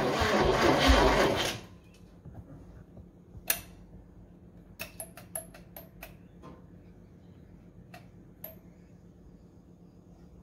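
Starter motor cranking a Holden 253 V8 that does not catch, stopping abruptly about a second and a half in. Then a scattering of light clicks and taps from hands working on the engine's wiring.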